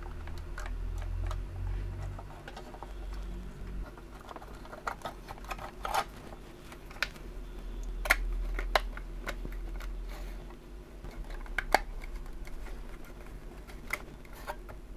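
Hard plastic shell parts of a 1999 Thinkway Ultra Buzz Lightyear toy being handled and fitted back together by hand, with a scatter of sharp clicks and knocks over a low handling rumble.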